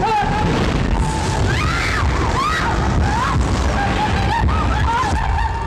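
Dramatic film background score: a dense, deep rumbling boom under a high, wavering, wailing melody line that swells in right at the start.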